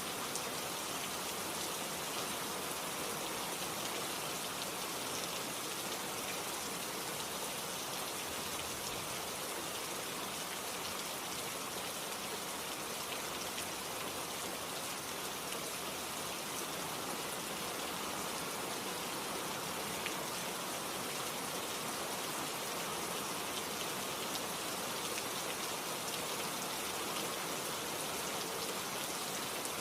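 Heavy rain falling steadily, a dense even hiss with scattered drops pattering on a surface.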